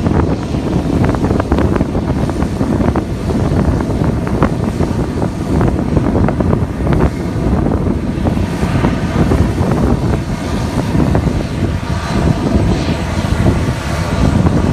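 Twin-turboprop airliner (ATR type) running on the ground, engines and propellers heard through heavy wind buffeting on the microphone. A steady, higher engine tone comes up from about halfway through.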